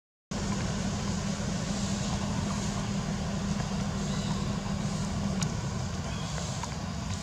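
Steady outdoor background noise with a low hum that stops about five and a half seconds in, and a few faint ticks.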